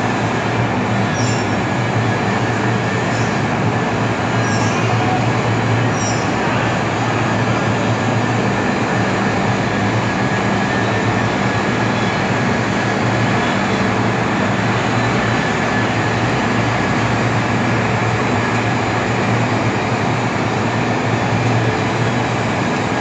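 Steady, loud industrial noise from the furnace plant in a foundry: a continuous rushing roar with a low electrical-sounding hum underneath, and a few faint high ticks in the first few seconds.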